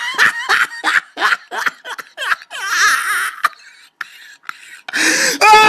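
A person laughing in quick, rapid bursts that trail off into fainter sounds. About five seconds in, a loud, high-pitched scream begins.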